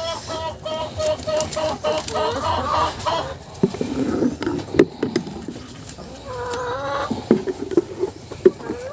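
Chickens clucking: a quick run of short, evenly repeated clucks through the first three seconds, and another drawn-out call about six seconds in. A few sharp knocks fall between the calls.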